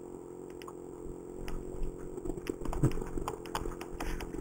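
Stand-up scooter rattling and knocking as it rolls over the joints of a concrete sidewalk, with the steady low drone of its small 49cc two-stroke engine underneath. The knocks come irregularly, loudest about three seconds in.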